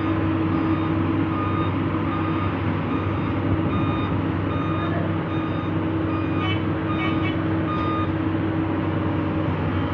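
A reversing or travel alarm on heavy equipment beeping in short repeated tones, at more than one pitch, over the steady running of a diesel engine.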